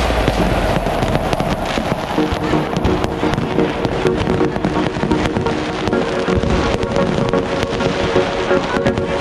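Crowd-level New Year fireworks: a steady stream of sharp bangs and crackling pops, with music playing under them in long held notes.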